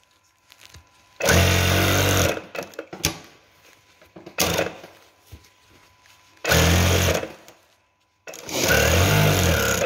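Sewing machine stitching a seam in four short runs, the first starting about a second in and a brief one near the middle, each stopping while the fabric is repositioned and turned along the cushion's side band.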